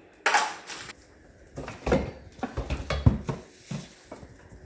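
Rustling and clattering of packaging and plastic parts being handled while unpacking a pressure washer's hose and accessories: a short rustle near the start, then a run of irregular knocks and rustles with a few dull thuds.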